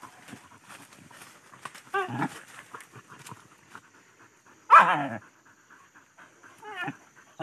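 Dogs worrying a downed wild boar, giving three short calls that fall in pitch: one about two seconds in, the loudest about halfway, and a faint one near the end.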